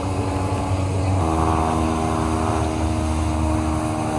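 Diesel locomotive engine running steadily, its pitch stepping up a little about a second in.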